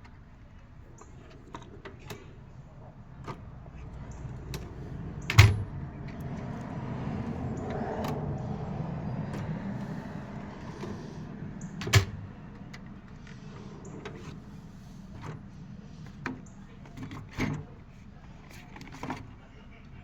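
Tool cases and tools being handled: scattered clicks and rattles, two sharp knocks about five and twelve seconds in, and a longer sliding rumble between them.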